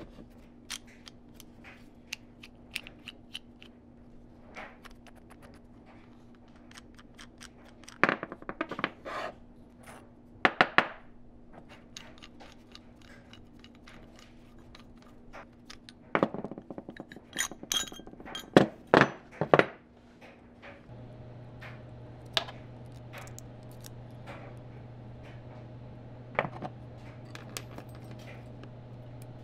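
Steel parts of an antique W&B railroad wrench clicking, clinking and knocking against each other and a wooden workbench as the wrench is taken apart by hand, in irregular clusters, loudest about a third of the way in and again just past halfway. A low steady hum runs underneath and drops to a lower, stronger hum about two-thirds of the way through.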